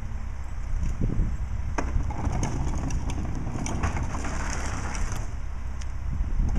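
A rear-loader garbage truck's diesel engine runs with a steady low rumble. Over it come scattered light clicks and clatter as a plastic trash cart is wheeled over wet pavement to the hopper.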